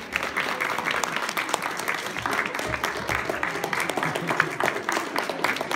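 A congregation applauding: many people clapping at once, dense and steady.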